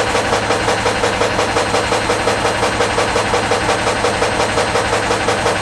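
1951 Lister stationary diesel engine running steadily on waste vegetable oil, with an even, regular chug over a constant hum.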